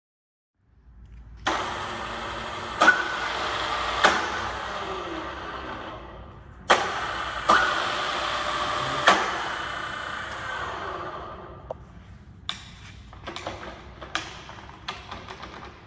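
Solberga SE 1235 geared-head drill press with a 3 HP motor, started twice: each time the spindle and gearbox come up to speed with a clack of the controls, then run down over a few seconds. Near the end come lighter clicks and knocks as the controls on the head are worked.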